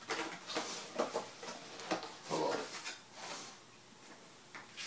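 Paper and card packaging handled up close: irregular rustles, scrapes and light taps as the documentation folder is opened and its paper envelopes are pulled out, thinning out near the end.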